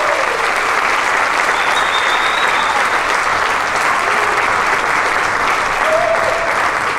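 Audience applauding steadily, a large crowd clapping.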